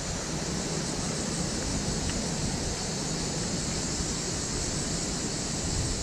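Outdoor ambience: wind buffeting the microphone in an uneven low rumble over a steady, even high-pitched hiss.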